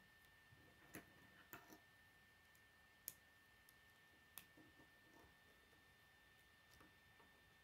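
Faint, sharp plastic clicks of K'nex rods snapping into and being worked in their connectors as pieces are fitted together by hand, several scattered clicks over a faint steady high-pitched hum.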